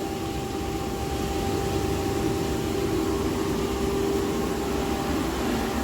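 Commercial boiler burner firing steadily in the plant room: an even roar with a constant low hum, while its combustion air and O2 setting is being tuned.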